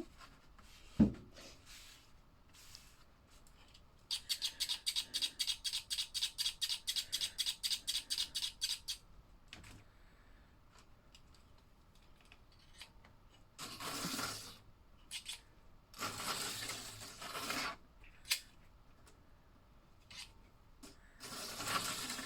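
Toy slot car's small electric motor whirring in short spurts on plastic track, with a thump about a second in and a rapid clicking run of about six clicks a second for about five seconds before the whirring spells.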